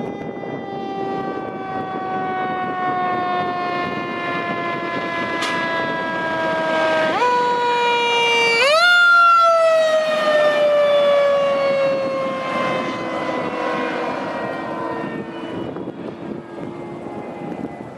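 A fire water tender's siren slowly winds down in pitch, is spun back up twice in quick succession about halfway through, then winds down again. The truck's engine and tyre noise runs underneath, and the sound is loudest as the truck passes in the middle.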